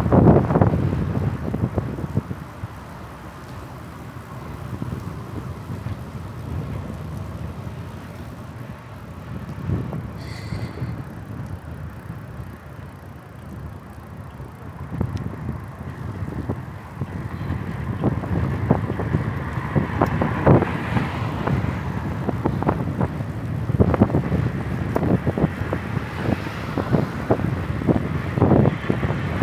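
Wind buffeting the microphone on a moving bicycle, over the bike's rolling noise, with rattling clicks and knocks growing busier in the last third. A short high ring sounds about ten seconds in.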